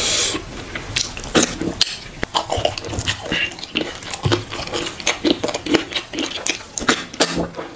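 Eating sounds of a man eating fufu and soup with his fingers: many short wet smacks, squelches and chewing clicks as he pinches off fufu, dips it in the soup and chews.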